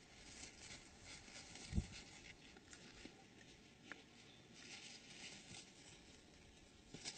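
Faint rustling of animals moving through dry grass, with one brief low thump about two seconds in.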